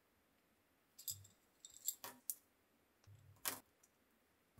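A handful of faint, sharp clicks and taps from small 3D-printed PLA plastic parts being handled, as a pin is pressed into the hole of a connection arm.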